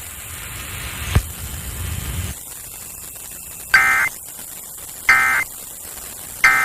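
Emergency Alert System end-of-message signal heard over FM radio: three short bursts of two-tone digital data, about a second and a half apart, marking the end of the alert. Faint radio hiss lies under it, with a single click about a second in.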